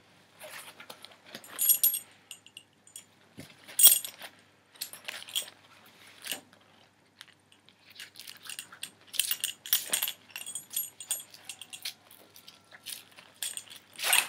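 Metal buckles and fittings on an olive military chest rig clinking and jangling in irregular bursts as its straps and pouch flaps are handled, with rustling of the webbing and fabric.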